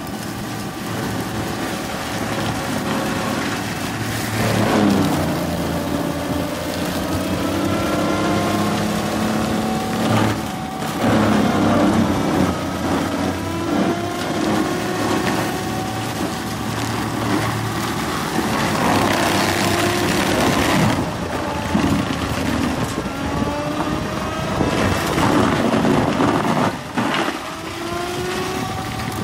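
Tractor engine running under load, driving a Seppi Miniforst flail shredder whose rotor chops and crushes palm fronds and branches. The engine note wavers up and down, and about every five to eight seconds a louder surge of crushing comes as the rotor bites into a heap of debris.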